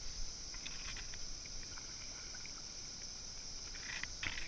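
Steady high-pitched drone of insects over the river, with a few light knocks and clatters of a paddle being handled against the boat. The clatters are loudest about four seconds in.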